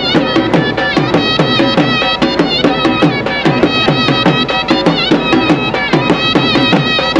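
Dhol drums beaten in a fast, steady rhythm of several strokes a second, with a wavering melody instrument playing over them.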